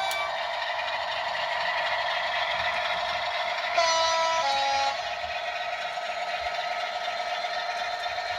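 DCC sound decoder in a Bachmann model diesel locomotive, playing through a small replacement speaker: a steady diesel engine drone. About four seconds in, a two-tone horn sounds for about a second, a higher note followed by a lower one.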